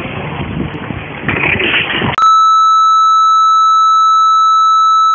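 Outdoor noise with wind buffeting the microphone, cut off about two seconds in by a loud, steady test-tone beep, the bars-and-tone signal of a TV test card. The tone holds at one pitch for about three seconds, then stops abruptly.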